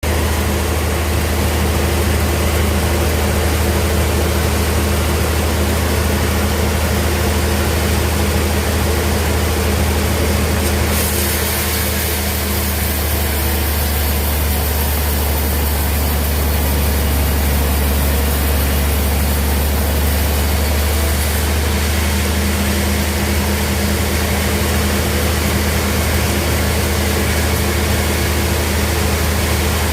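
Sawmill band saw running steadily with a deep, even hum. A brighter high hiss joins about a third of the way in and stops about two-thirds of the way through.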